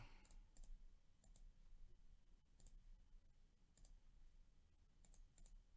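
Near silence with a few faint computer mouse clicks, some in quick pairs.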